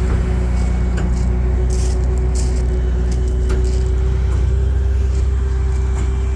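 Semi truck's engine running steadily with a constant whine, as the truck pushes its load of sawdust out of the trailer.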